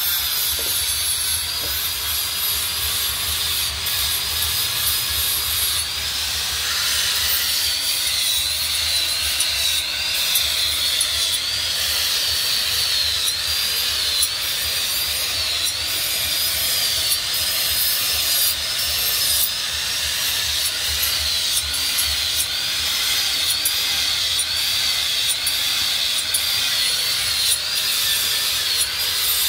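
Electric angle grinder with an abrasive disc grinding a steel knife blank: a harsh grinding rasp under a high whine that dips and recovers in pitch over and over.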